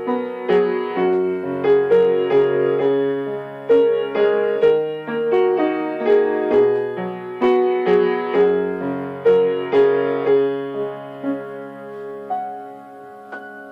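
Background piano music: a melody of struck notes that thins out and fades near the end.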